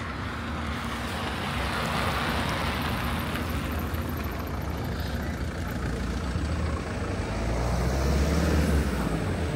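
Road traffic on a city street, with vehicles driving past; one vehicle's low engine rumble builds to its loudest about eight to nine seconds in.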